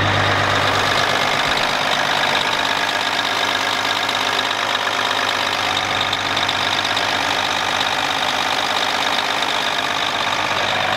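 Turbocharged six-cylinder Caterpillar diesel of a 1990 Peterbilt semi idling steadily. It was started moments before, its first run after sitting over the winter.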